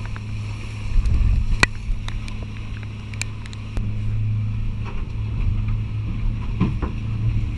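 A catamaran's engine runs at a steady drone under way, with wind buffeting the microphone at times. A couple of sharp clicks sound, the clearest about a second and a half in.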